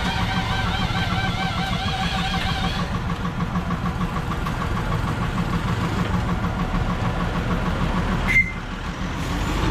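A small engine idling with a steady, rapid throb. Wavering music plays over it for the first three seconds or so, and near the end there is one sharp click, after which the sound briefly drops.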